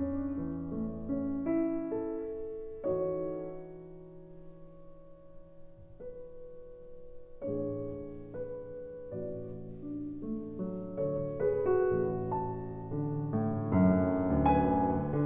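Soft, slow solo piano music with held notes, thinning out to a few quiet notes in the middle and building fuller and louder toward the end.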